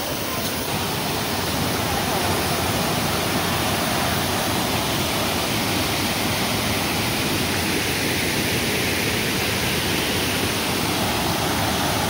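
Small waterfall cascading over rock ledges close by, a steady rushing of water that holds even throughout.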